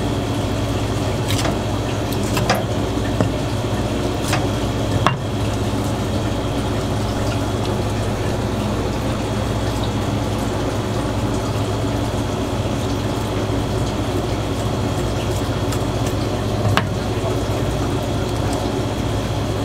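Steady low mechanical hum of kitchen equipment with a faint high whine. Over it come a few sharp clicks of a knife against a plastic cutting board, mostly in the first five seconds and once near the end.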